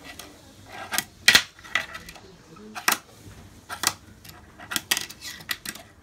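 Fingerboard clacking on a desk top: irregular sharp clicks as its tail is popped and the little board and wheels land. The loudest click comes about a second in.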